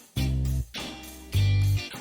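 Background music: a guitar-led track with a strong, punchy bass line in a steady rhythm.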